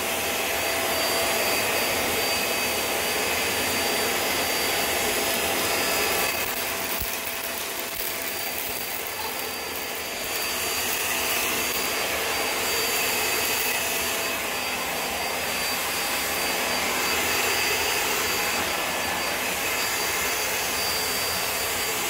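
Hoover React Powered Reach Premier vacuum cleaner running steadily as it is pushed over a hard tile floor, its motor whine carrying a steady high tone. It goes a little quieter for a few seconds near the middle.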